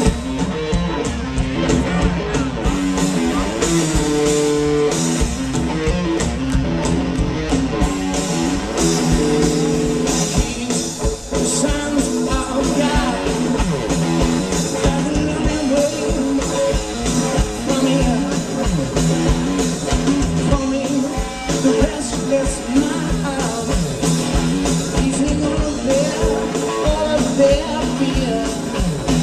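Live rock band playing loudly: electric guitar and drums with a male singer over them.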